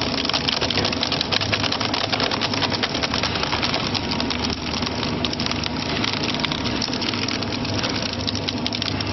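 Twin-shaft shredder's toothed rollers turning and tearing up a long curved strip, a steady dense crackle of snapping and cracking over the machine's low drone.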